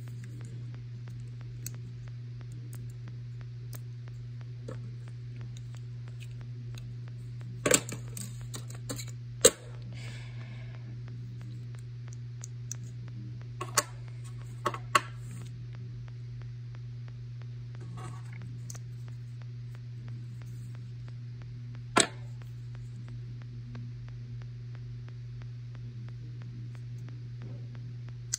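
iPod shuffle players handled and set down on a desk: a few scattered sharp clicks and taps, the loudest about a third of the way in, over a steady low hum.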